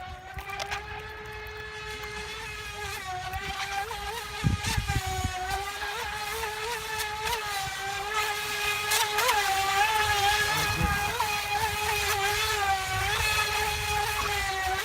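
FT012 RC speed boat's brushless electric motor running with a steady whine, its pitch jumping up briefly again and again, growing louder as the boat comes closer. Two short low rumbles come in about a third of the way through and again near the end.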